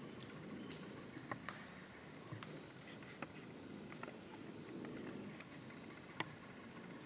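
Faint, steady chirring of crickets, with a few scattered small clicks and snaps, the sharpest about six seconds in.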